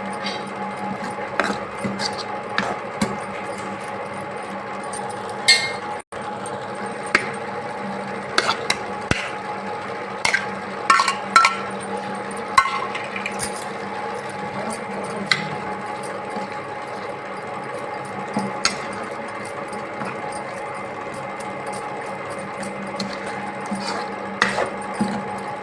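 Irregular clinks and taps of utensils against dishes, some ringing briefly, over a steady low hum.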